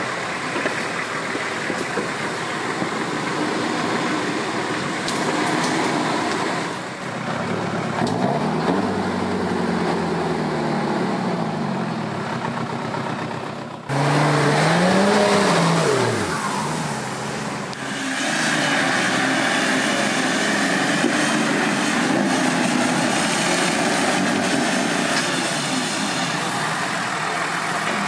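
Off-road 4x4 engine revving, its pitch rising and falling several times under load. The sound changes abruptly about 14 and 18 seconds in, with a louder rev right after the first change.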